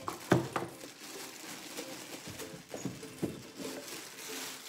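Plastic packaging rustling as it is pulled out of a rice cooker's inner pot, with a few sharp knocks of the parts being handled, the loudest about a third of a second in.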